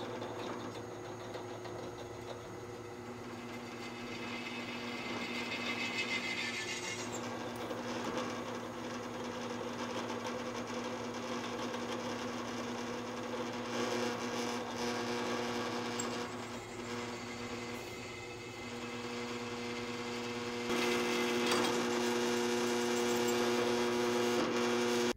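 Drill press motor running with a steady hum while its twist bit drills through stacked quarter-inch steel flat bar. It grows louder about three-quarters of the way through.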